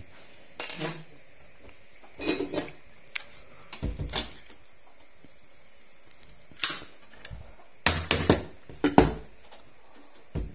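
Scattered knocks and light metallic clatters from a hand riveter and loose steel rivets being handled on the laminated top of a plywood hardcase. A steady high cricket chirr runs underneath.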